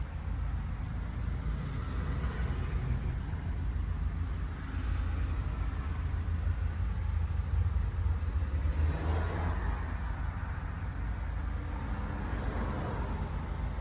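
Steady low rumble of a car driving, with the sound swelling slightly a couple of times.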